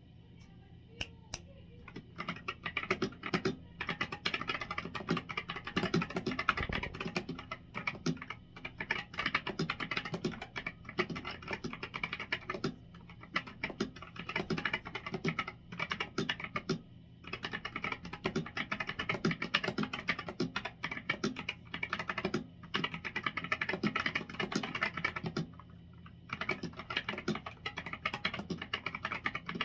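Ractous RTK61BP keyboard with Gateron optical red linear switches, a steel plate, a plastic case and stock keycaps, typed on quickly. A few single keystrokes come about a second in, then fast runs of typing follow with brief pauses between them.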